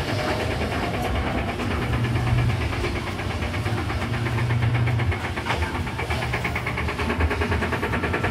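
Panasonic B7 top-load washing machine in its spin cycle, running with a loud, fast, even knocking. Its basket sits crooked in the tub, knocking as it spins.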